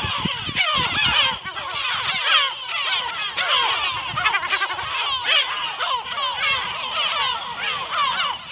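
A gull colony calling: many gulls crying at once in a loud, unbroken chorus of overlapping calls.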